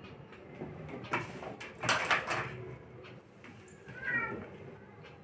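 Rustling, scraping knocks, loudest about two seconds in, then a short high-pitched kitten mew just after four seconds.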